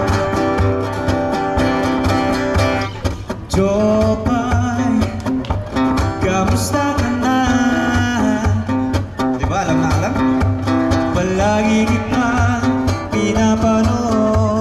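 Street buskers performing a song: strummed acoustic guitar over a steady beat, with a singer coming in about four seconds in.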